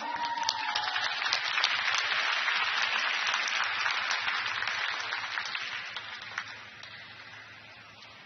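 Arena crowd applauding a skater who has just been announced, the clapping fading away over the last few seconds.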